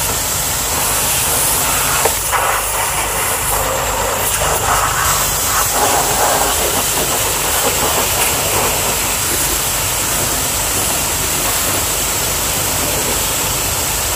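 High-pressure washer jet spraying water onto a car's tyre, wheel arch and side step: a steady loud hiss of the spray with the washer's motor and pump running underneath.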